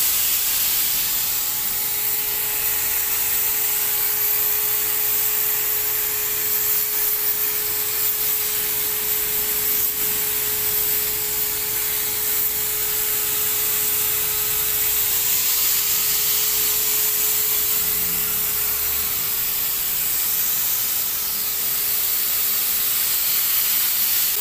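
Wagner portable electric paint sprayer running steadily, its motor giving a constant whine under the hiss of air and atomised water from the spray gun nozzle. It is spraying plain water as a test.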